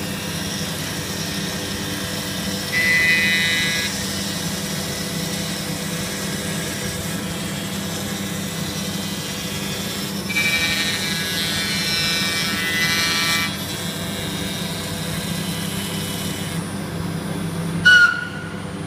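CNC router spindle and its dust extraction running steadily as the cutter mills the foam core of a fibreglass composite panel down to the glass skin. A higher-pitched whine swells twice as the cutter bites, and a brief sharp squeal comes just before the end.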